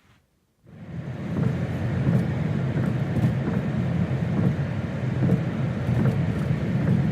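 Steady low rumble of a moving vehicle, starting abruptly about half a second in after near silence, with a few faint clicks.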